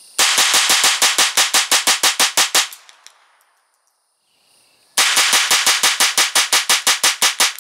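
Ruger Charger Takedown .22LR semi-automatic firing CCI Mini-Mag rounds in two rapid strings of about twenty shots each, about eight a second, with a gap of about two seconds between them. The first string is fired from the bare muzzle and the second with a prototype muzzle brake on the barrel.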